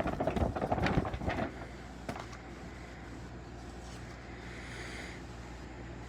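A picture book being shaken, its pages and cover flapping and rustling in quick irregular strokes for about a second and a half, then only a low steady hum of room tone.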